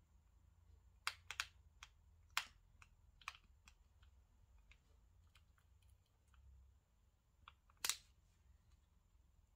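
Faint, scattered light clicks and taps of small objects handled on a tabletop, about a dozen in all, the loudest about a second in, about two and a half seconds in and near eight seconds.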